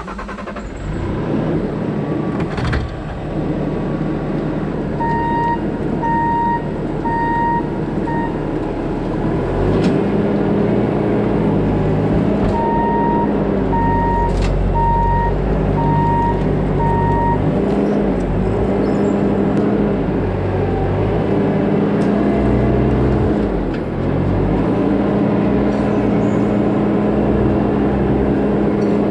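Bobcat T650 compact track loader's diesel engine running hard under load, its pitch sagging and recovering several times. A reversing alarm beeps steadily in two runs, about a sixth of the way in and again around the middle.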